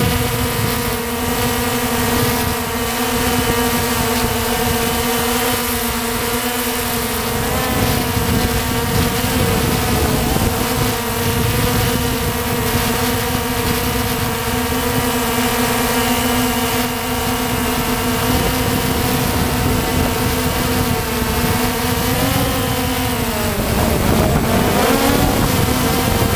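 Walkera Tali H500 hexacopter's motors and propellers running in flight, a steady hum with wind rush over it, heard close from the onboard camera. About 23 seconds in the pitch dips briefly and then climbs back.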